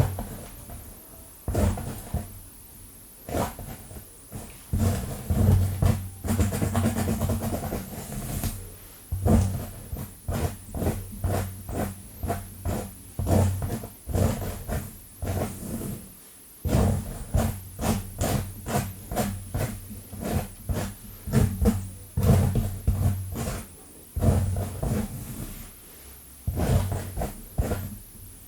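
Long fingernails scratching fast and hard through hair and across the scalp close to the microphone: quick repeated strokes, about two to three a second, in runs broken by short pauses.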